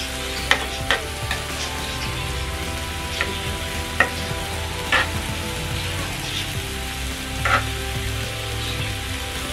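Pork and vegetables sizzling steadily on a tabletop Korean barbecue grill pan, with metal tongs clicking against the pan about six times as the meat is turned.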